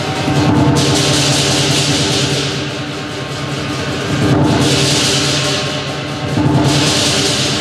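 Lion dance percussion: a large lion drum beating fast and steadily under crashing cymbals and gong. The cymbals come in loud swells that break off briefly about four seconds in and again near the end.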